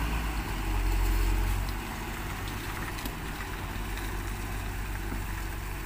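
Heavy diesel truck engines running low and steady while a crane wrecker lifts the front of a loaded cargo truck, a little louder for the first couple of seconds.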